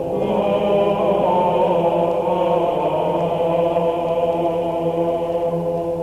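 Soundtrack music of chanting voices, choir-like, holding long sustained notes.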